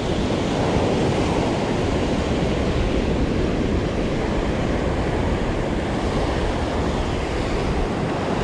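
Ocean surf breaking and washing up the sand in a steady wash, with wind buffeting the microphone.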